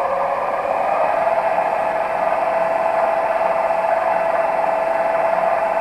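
Sieg C3 mini lathe running steadily with a steady whine over a constant rushing hiss, spinning the turned wooden pen blank during the polishing stage. The whine settles slightly lower in pitch about half a second in.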